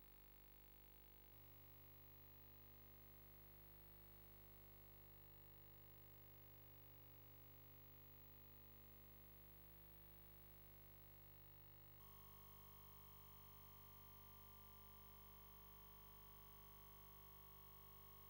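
Near silence: a faint, steady electrical hum and hiss, stepping up slightly in level twice.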